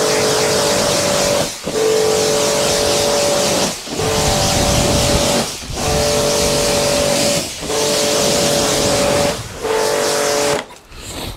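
Pressure washer on a wide fan setting rinsing pre-wash solution off a motorcycle: the hiss of spray with the pump motor's steady hum beneath it. It goes in runs of about two seconds, broken by five short pauses where both cut out, and it stops a little before the end.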